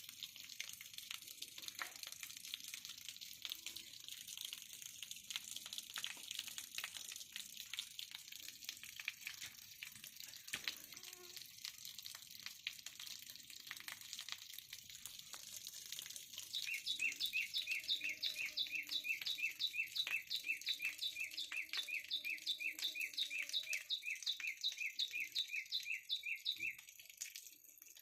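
Water running and splashing in a steady hiss of small drops. About halfway through, a high, shrill chirp starts repeating about three times a second for roughly ten seconds and is the loudest sound.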